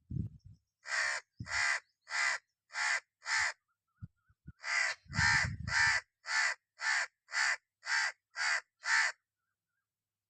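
Red-naped ibis giving harsh, screaming calls in two runs: five evenly spaced calls, a short pause, then eight more. Some low thuds sound near the start and under the first calls of the second run.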